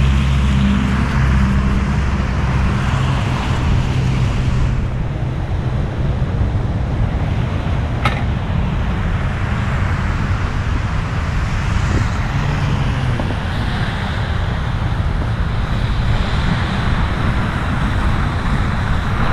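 Steady rushing noise of a fat-tire e-bike riding through snow: wind and tyre noise on the camera microphone, with one brief click about eight seconds in.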